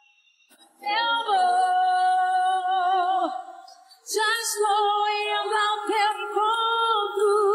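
A woman's solo voice singing a cappella, with no instruments. About a second in she holds a long sustained note, which fades out; after a short pause she begins a new phrase that slides between notes.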